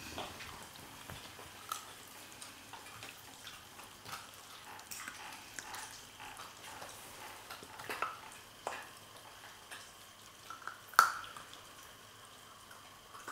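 Flat-coated retriever puppies chewing and crunching raw chicken wings, with irregular wet smacking and small bone cracks, and one louder sharp knock late on.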